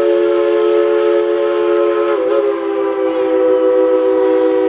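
Steam locomotive's chime whistle blowing one long, steady blast of several notes at once, wavering briefly about two seconds in.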